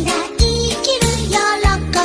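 Upbeat background music with a steady beat and a bouncy melody.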